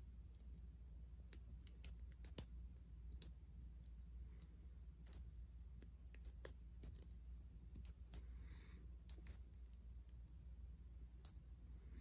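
Small, irregular metallic clicks of a lock pick working the pin tumblers of a Hyper Tough padlock held under tension, a few sharper ticks standing out among them.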